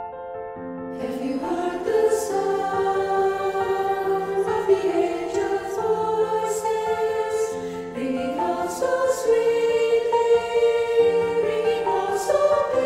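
Mixed church choir singing a slow piece in sustained chords, the voices coming in about a second in.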